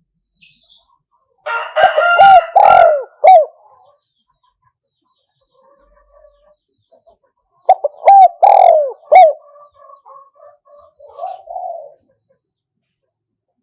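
Spotted dove cooing: two loud phrases of arched coos about six seconds apart, the second trailing off into softer notes.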